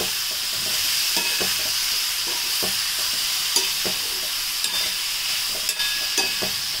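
Chopped tomatoes, dry red chillies and spices sizzling in a little oil in a frying pan over a low flame, the tomatoes softened and nearly done. A metal spatula stirs them, with irregular scrapes and taps against the pan.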